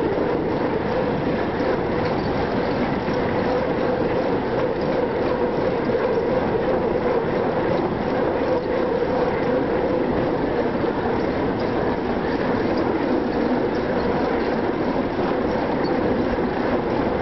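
Bicycle rolling along a bridge deck: a steady, unbroken rumble of the tyres with a hum running through it.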